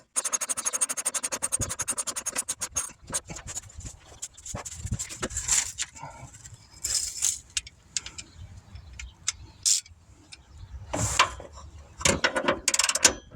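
A ratchet wrench clicking rapidly for about three seconds as a lower control arm bolt is run down, then scattered clanks and scrapes of tools, with louder knocks near the end as the bolt is brought up to torque.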